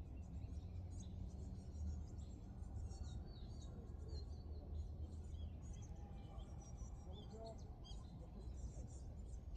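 Several small birds chirping and calling, with many short high notes and quick glides overlapping throughout, over a steady low rumble.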